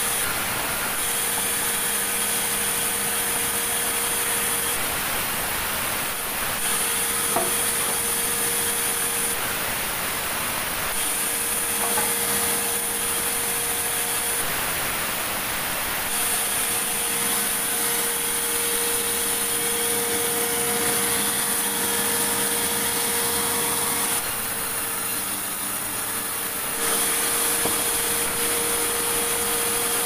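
Sawmill band saw running and cutting timber. The cutting noise comes in five stretches of a few seconds each, the longest about eight seconds, with short easings between as the saw runs through and clears each cut.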